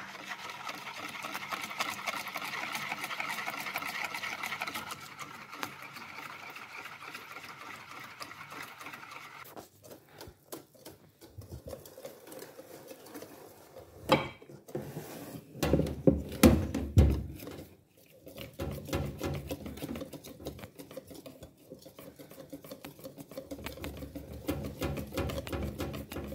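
Wire whisk beating pancake batter in a bowl: fast, even strokes of the wires clicking and scraping against the bowl. Partway through come a few louder, irregular knocks and clatter, and then the rhythmic whisking starts again with a lower tone.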